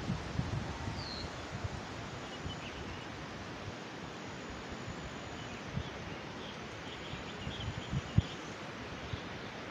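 Steady hiss of wind in the trees with faint, high bird chirps, more of them in the second half, and a few short low thumps, the sharpest a little after eight seconds in.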